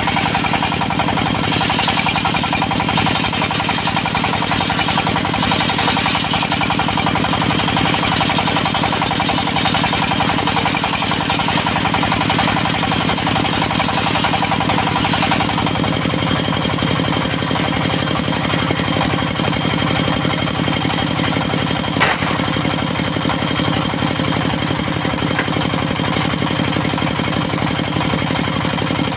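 Engine of a portable circular sawmill running steadily with an even hum. A hiss rides on top and drops away about halfway through, and a single sharp click comes about two-thirds of the way in.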